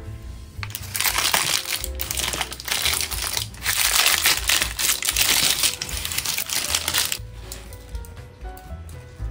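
Baking paper crinkling loudly as it is pulled out from under a baked loaf. It starts about a second in and stops about seven seconds in, with background music under it that carries on alone afterwards.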